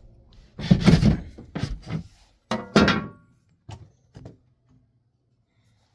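A string of heavy knocks and thunks, like boards and tools being handled and set down on a wooden floor, loudest in the first three seconds, then two lighter knocks.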